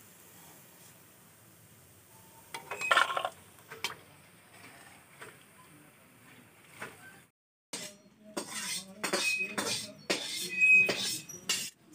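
Steel kitchen utensils clinking as a perforated skimmer and a steel bowl knock together while fried khurma pieces are moved from the kadai into the bowl. A few scattered clinks in the first half, then a quick run of clinks with a couple of short metallic rings in the second half.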